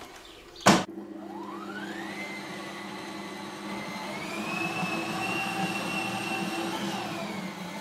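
Bosch stand mixer kneading bread dough with its dough hook. After a click, the motor starts and winds up to a steady whine on a slow speed, steps up to a higher speed about four seconds in, and winds down near the end.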